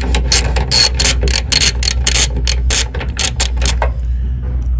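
Hand ratchet clicking quickly, about four clicks a second, as it turns a thread tap held in a socket, re-tapping a stripped bolt hole in a car's bumper bracket. The clicking stops a little before four seconds in.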